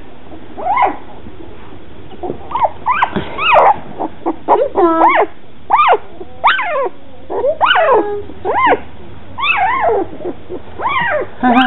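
Two-week-old standard poodle puppies crying: a string of short, high squeals that rise and fall in pitch, roughly one every second, sometimes two or three close together.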